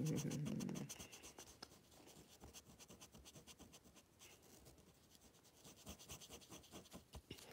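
Red felt-tip marker scribbling back and forth on a paper worksheet as a small circle is coloured in: a quick run of short scratchy strokes. A brief low rustle comes in the first second.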